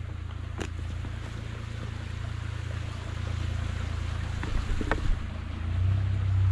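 Steady low rumble of wind on the camera microphone, louder near the end, with a few light knocks from footsteps on a log footbridge.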